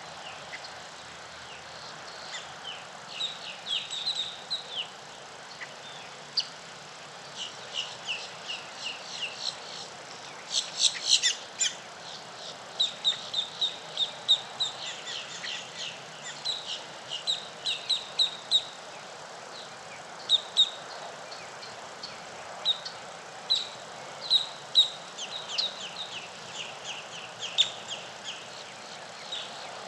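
Small birds chirping: many short, quick notes in runs, busiest and loudest about eleven seconds in, over a steady faint background hiss.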